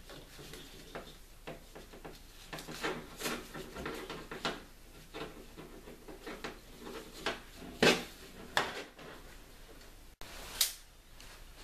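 Handling noise of a Gamo Gun Buddy rifle sling being shortened: the strap rubbing and sliding through its plastic adjuster, with scattered clicks and light knocks against the tabletop, a few sharper knocks in the second half.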